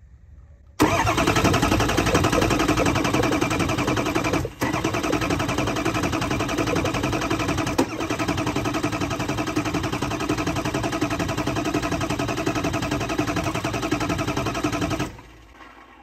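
Ford 6.0 Powerstroke diesel cranking over on its starter for about fourteen seconds without starting, with a brief break about four and a half seconds in; it cuts off suddenly. This is a crank test of base oil pressure, and the low-pressure oil pump is now filling the open oil filter housing after its stuck relief valve was cleaned.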